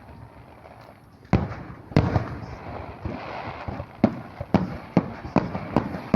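Aerial fireworks bursting: single bangs about a second and two seconds in, then a quicker run of bangs roughly every half second from about four seconds on, with crackling between them.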